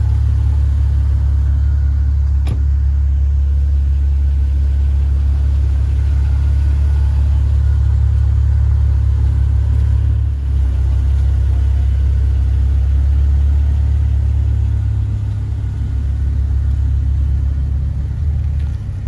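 Steady low rumble of a car on the move, with a single short click about two and a half seconds in.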